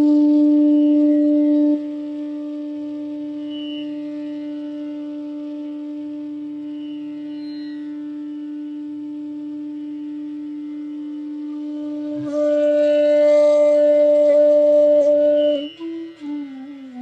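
Bansuri bamboo flute holding one long, steady note in a slow, introspective alap. The note softens after a couple of seconds, swells louder again about twelve seconds in, then slides briefly down in pitch near the end and returns to the same note.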